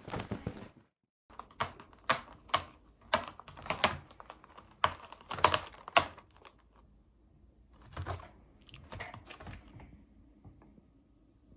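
A run of irregular, light clicks and taps in uneven clusters, several a second at times, which die away after about ten seconds.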